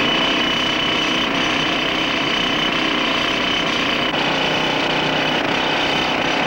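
Hand-held pneumatic rock drill boring into a concrete column: a loud, steady hammering din with a high whine on top, running without a break.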